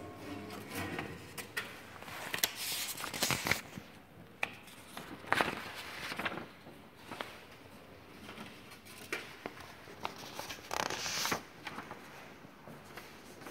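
Paper flyers rustling and scraping as they are slid into the slots of sheet-metal apartment mailboxes, in several separate rustles with small clicks from the metal.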